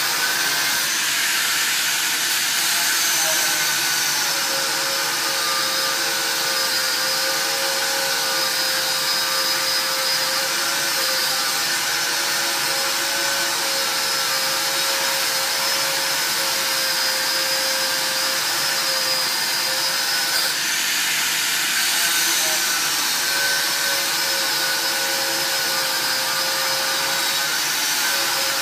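Handheld angle grinder grinding steel: a steady whine over a gritty rushing noise. It is mixed with the steady rush of a TEKA Filtoo fume extraction unit pulling the sparks through its hose. The whine dips a few seconds in and drops out briefly about two-thirds of the way through.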